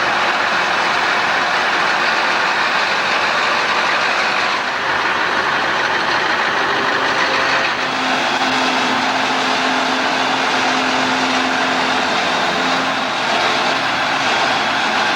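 Steady engine and road noise of a truck driving on the highway. A low, even hum joins in about eight seconds in and fades around thirteen seconds.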